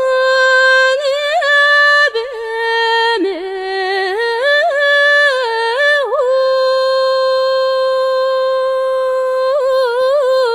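A woman singing unaccompanied, a slow melody of long held high notes joined by ornamented turns, with one long steady note through the second half.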